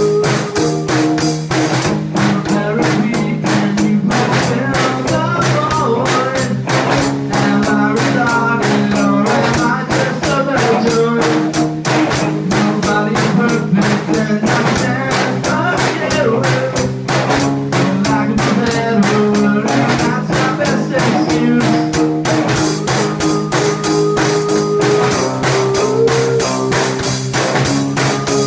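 A small rock band playing live: an electric guitar and a drum kit keep a steady rock beat, and a man sings lead into the microphone over much of it.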